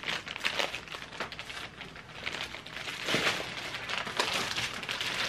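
Plastic packaging crinkling and rustling in irregular crackles as items in plastic bags are handled in a cardboard box, loudest about three seconds in.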